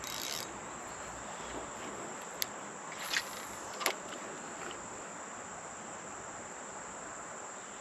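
Insects, crickets or similar, giving a steady high-pitched trill, with a few faint clicks about two to four seconds in.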